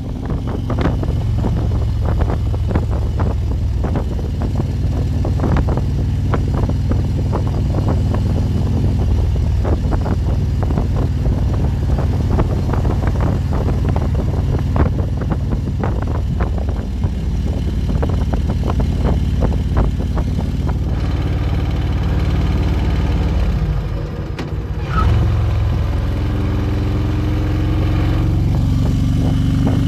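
Harley-Davidson Road King's V-twin engine running steadily while riding. About 24 seconds in it drops off briefly, as if the throttle is closed, then picks up again with the pitch climbing as it accelerates near the end.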